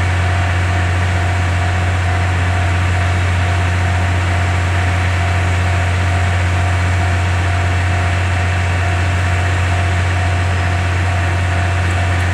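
Diesel engine idling: a steady low hum with a faint constant whine above it, as from the standing diesel-hauled train.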